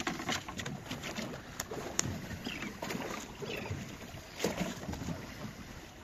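Small boat rocking on the sea, water lapping at the hull with wind on the microphone, and scattered knocks and clicks on board; a sharp click about two seconds in and a louder knock a little past four seconds.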